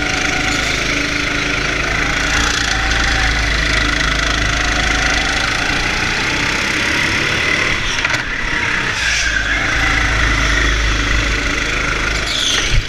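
Go-kart's motor running steadily as the kart laps the track, with a short sharp knock about eight seconds in and a louder one near the end.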